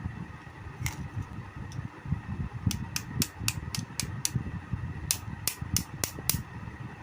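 Table fan running with an uneven rumble and runs of sharp clicks, about four a second, twice in the middle part: the noise of a worn or faulty motor shaft.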